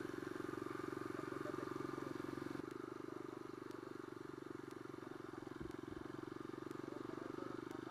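A supermoto's single-cylinder engine running at low speed with a fine, even pulse, easing off a little about two and a half seconds in as the bike rolls slowly.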